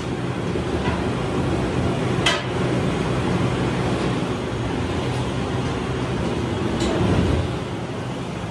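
Steady hum of running workshop machinery, with two short sharp knocks, one a little over two seconds in and one about seven seconds in.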